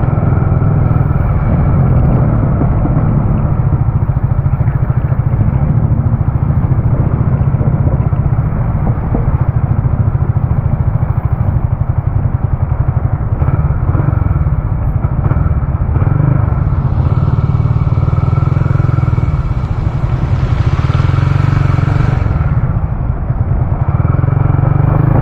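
Motorcycle running steadily while being ridden, under a heavy, uneven low rumble of wind on the microphone. A rushing hiss swells for several seconds in the second half.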